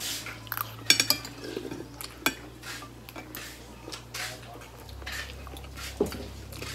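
Metal spoons and forks clinking and scraping against plates and bowls while eating: irregular sharp clinks, with a quick cluster of them about a second in.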